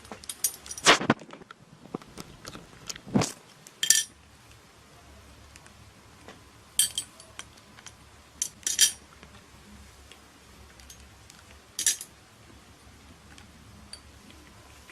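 A series of irregular clinks and knocks of small hard objects, some with a brief metallic or glassy ring. They come thickest in the first few seconds and then fall to a few scattered clinks.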